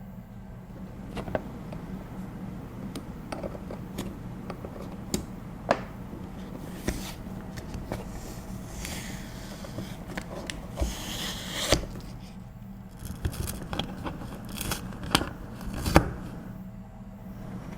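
Keyboard packaging being handled: scattered clicks and scrapes, with crinkly rustling from about nine to twelve seconds in.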